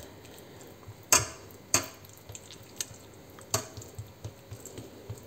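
A fork patting and pressing down a layer of diced herring: soft wet dabs, with three sharp clicks about one, two and three and a half seconds in.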